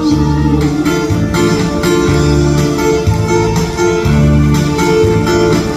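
Instrumental break in a trot song: an acoustic-electric guitar played over a recorded backing track, with a low bass pulse about once a second.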